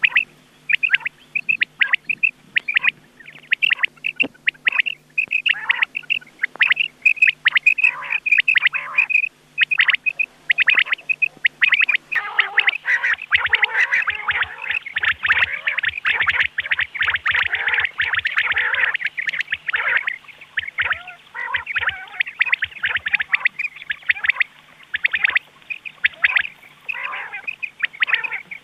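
Recorded rain quail calls of the kind played as a hunting lure: short, sharp call notes repeated over and over, thickening into a dense, overlapping chorus for several seconds in the middle before thinning out again.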